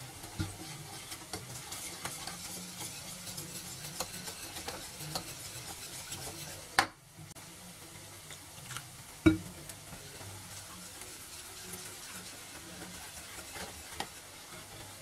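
Wire whisk beating gram flour and water into a thin batter in a plastic bowl: soft, irregular clicks and scrapes of the wires against the bowl, with two louder knocks about seven and nine seconds in.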